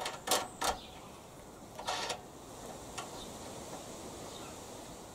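Short metallic handling clicks as a washer and nut are fitted by hand onto a lawnmower handle bolt: three quick clicks in the first second, a brief scrape about two seconds in, then only faint background.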